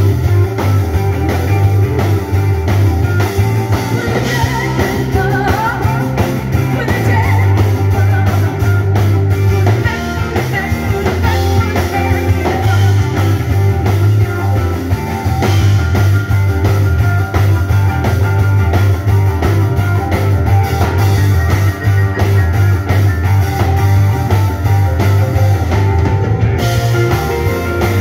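Live blues-rock band playing: electric guitar, bass, drum kit and keyboards, with a woman singing.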